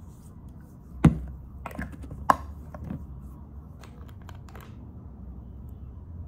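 Small plastic cosmetic jar being handled on a desk: a few scattered clicks and light knocks as it is picked up, its screw lid opened and the lid set down, the sharpest knock about a second in. A low steady hum sits underneath.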